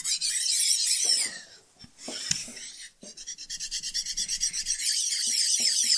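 A precision ground flat stone is rubbed by hand over the underside of a Schaublin 102 lathe compound slide with a dry, high, scratchy rasp. It is stoning down raised spots around a mounting hole so the surface sits flat. The rubbing stops for a moment about a second and a half in, then resumes in quick short strokes.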